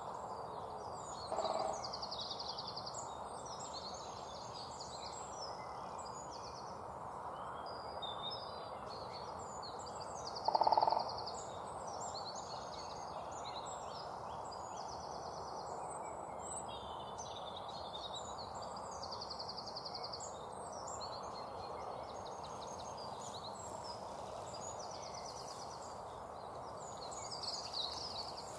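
Outdoor ambience: small birds chirping and twittering continuously over a steady background noise. There is a faint short tone about a second and a half in, and a louder half-second tone about ten seconds in.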